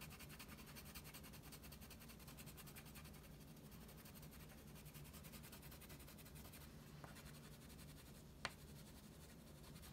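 Wax crayon rubbing on paper in quick, faint back-and-forth strokes as a leaf shape is coloured in. A single faint tick comes about eight and a half seconds in.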